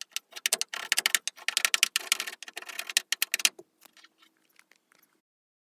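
Plastic spreader scraped and pressed over the painted sheet-metal panel of a van while filling holes: a dense run of scratchy clicks for about three and a half seconds, then a few fainter ticks.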